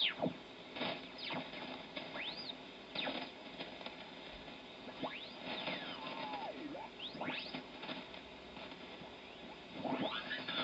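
Kenwood TS-590SG HF transceiver's receiver audio, heard from its extension loudspeaker, as the tuning knob sweeps down the 80 m band in LSB with AGC off. Band noise is crossed again and again by squeaky, gliding whistles as mistuned single-sideband stations sweep past, and it grows louder near the end as a stronger signal comes in.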